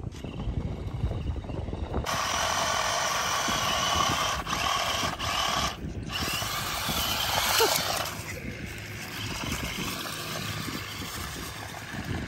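Electric drive motors and gearboxes of a toy remote-control stunt car whining as it drives off across dry ground. The whine starts about two seconds in, cuts out briefly a few times as the throttle is let off, and fades after about eight seconds as the car gets farther away.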